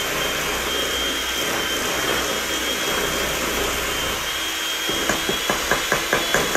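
Electric hand mixer running steadily with a thin high whine, beating creamed shortening, butter and sugar for cookie dough in a steel bowl. Near the end comes a quick run of clicks, about five a second, as something knocks against the bowl.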